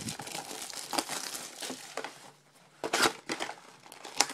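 Wrapping of a sealed trading card box being opened: a run of crinkling and tearing crackles, loudest about three seconds in.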